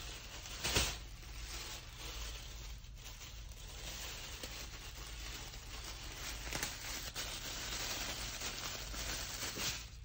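Clear plastic bag crinkling and rustling as it is handled and opened to unwrap a folded fleece blanket, with a sharp crackle about a second in and more crackles near the end.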